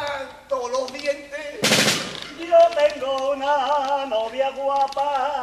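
A short snare drum roll about a second and a half in, between men's voices holding long, wavering sung notes.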